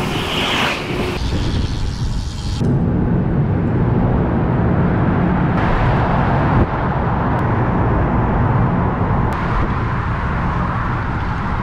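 Wind buffeting the microphone and road noise of a road bicycle riding steadily. About two and a half seconds in, the hiss thins out and a low rumble takes over.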